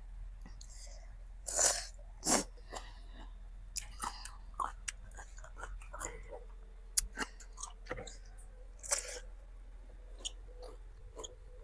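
Close-up chewing and crunching of raw fruit rujak, with wet mouth clicks and a few louder crunching bites about two seconds in and again near nine seconds.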